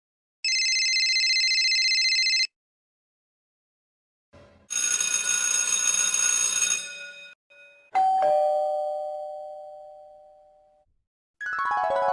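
A run of separate sound effects. First a steady electronic buzzing ring for about two seconds, then a harsh, bright burst of about two and a half seconds. Then a single struck, bell-like ding that dies away over about three seconds, and near the end a cluster of tones sweeping down and up in pitch.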